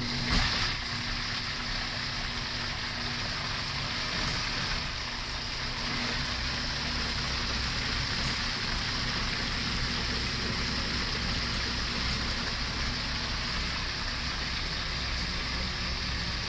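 Hamilton Beach countertop blender motor running steadily, whirring a thick, warm cream-cheese batter with egg yolks. The sound grows slightly fuller and deeper about six seconds in.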